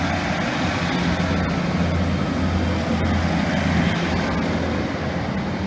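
Class 156 Sprinter diesel multiple unit pulling away, its underfloor diesel engines running under power with a steady low drone over a broad rumble.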